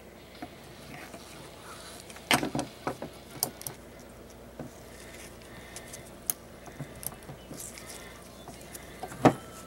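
Scattered metallic clicks and knocks as the parts of a .22 LR bolt-action receiver and a screwdriver are handled on a wooden table. There is a quick cluster of clicks about two seconds in and the loudest knock near the end, over a faint steady hum.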